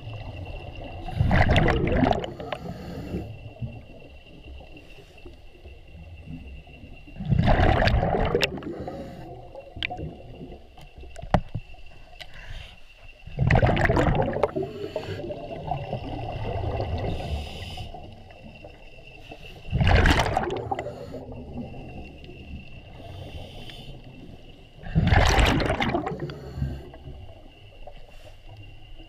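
Scuba diver breathing through a regulator underwater: five loud bursts of exhaled bubbles, each about a second long, coming roughly every six seconds.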